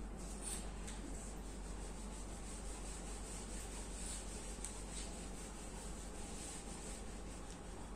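Whiteboard eraser rubbing across a whiteboard, wiping off marker writing in a run of strokes.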